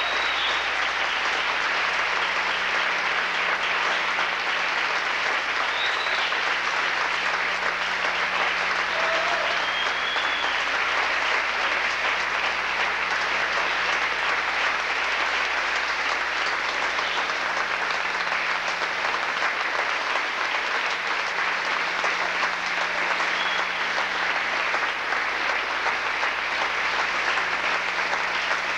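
Theatre audience applauding steadily, with a few brief calls heard over the clapping.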